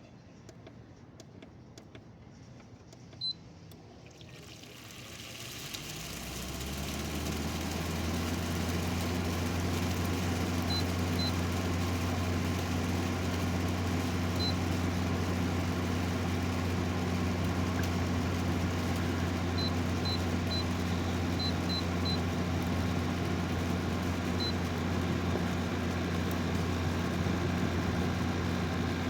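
A 6,000 BTU GE (Haier) wall air conditioner starting up, heard from its outdoor side: a single short beep, then the fan and compressor come on about four seconds in and rise over a few seconds to a steady low hum that runs on evenly.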